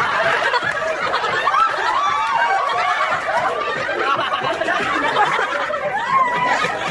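A group of people laughing and calling out over one another, many voices at once without a break.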